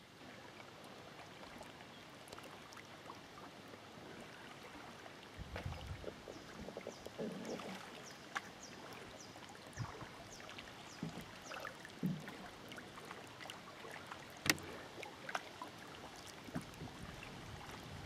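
Faint lakeside ambience: water lapping gently with small irregular splashes and light knocks, and one sharper click a little past the middle.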